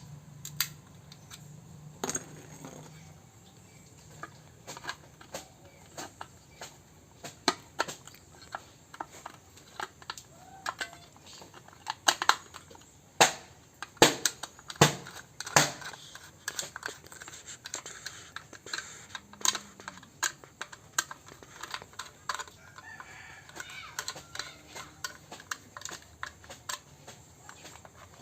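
Irregular sharp clicks and knocks, closest together and loudest about halfway through, with a low hum that fades out about three seconds in.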